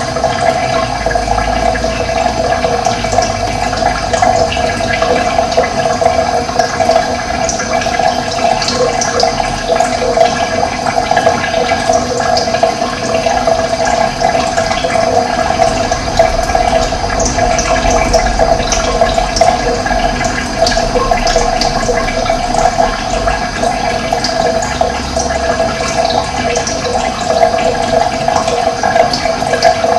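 Running water flowing steadily and fairly loudly, with scattered short, high bird chirps over it.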